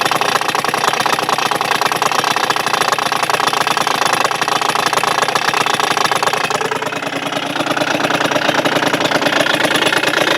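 Suzuki Address 110's two-stroke engine running with a persistent rattling knock from inside the motor. The mechanic suspects the piston and cylinder. The engine speed shifts briefly about two-thirds of the way through.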